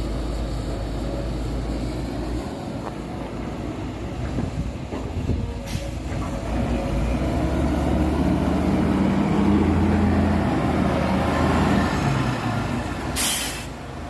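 Heavy diesel dump truck engine running, revving up and holding high about halfway through, with a short sharp hiss of air near the end.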